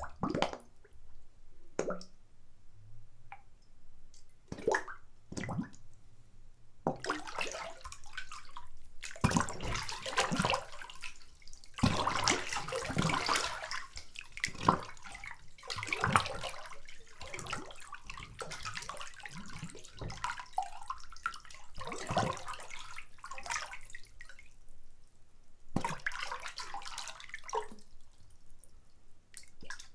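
Bathwater splashing and sloshing as a person sits and shifts about in a filled bathtub: a few small separate splashes at first, then a longer stretch of busier sloshing, then a few small splashes again.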